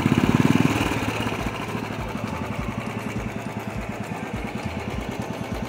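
Royal Enfield Classic's single-cylinder engine just started, louder for the first second, then settling into a steady, even idle.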